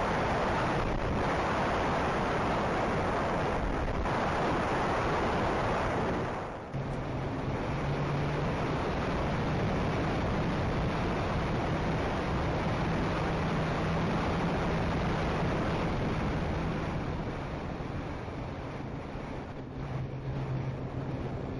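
Wind rushing over the onboard camera microphone of a Multiplex TwinStar RC plane in flight. About a third of the way in, a steady low hum of its electric motors and propellers joins the wind noise and carries on under it.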